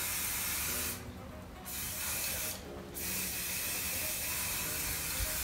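Aerosol can of pink temporary hair-colour spray hissing onto a strand of hair in three bursts, with two short pauses between them.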